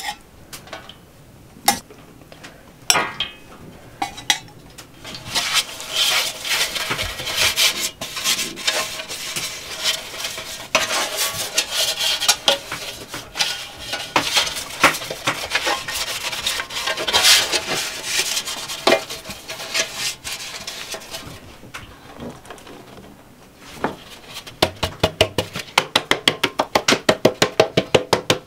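Metal baking trays handled and rubbed, with scraping and light knocks, as they are greased and floured. Near the end comes a quick even run of taps, about seven or eight a second, as a floured tray is tapped to spread the flour.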